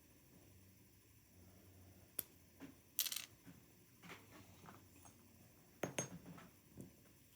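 Scattered small clicks and scrapes of metal parts being handled as a pin-and-slider dimple lock cylinder is taken apart, the loudest a short scrape about three seconds in.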